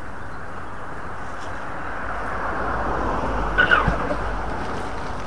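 A car passing on the road beside the bridge, its tyre noise swelling to its loudest a little past halfway and then fading, over a steady background hiss. A brief cluster of clicks and short squeaks comes at the loudest point.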